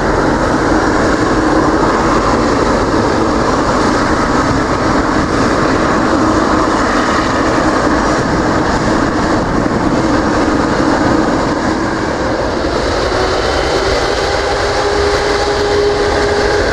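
The Boeing 777-300ER's twin GE90 turbofans running loudly and steadily with a low hum. About three-quarters of the way through, a whine begins to rise steadily in pitch as the engines spool up.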